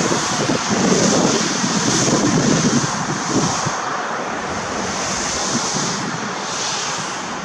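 Battery-powered RC model hovercraft's electric fans running some way off, a hissing rush that swells and fades several times as it is driven around. Wind buffets the microphone with a low rumble, heaviest in the first few seconds.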